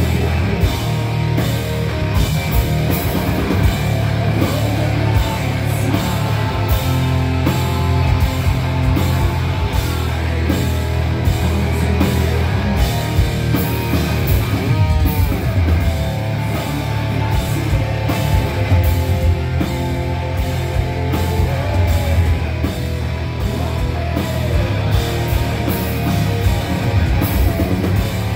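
Live hard rock band playing loud: distorted electric guitars, bass guitar and drum kit, with a sliding note about halfway through.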